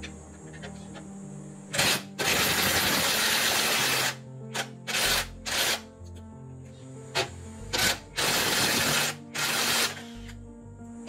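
Background music, with a power tool run in loud bursts: a long one of about two seconds starting about two seconds in, then several short ones.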